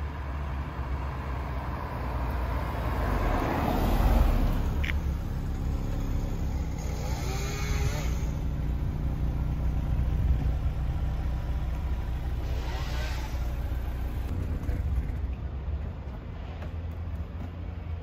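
Honda S2000's four-cylinder engine running as the car drives up and past, loudest about four seconds in, then running steadily at idle.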